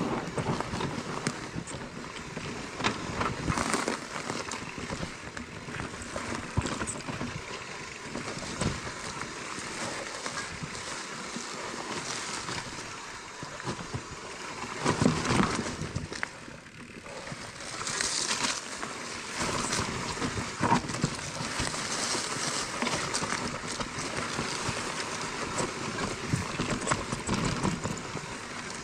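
Mountain bike riding down a rough trail: tyres rolling over dirt, roots and rocks, with a steady stream of knocks and rattles from the bike.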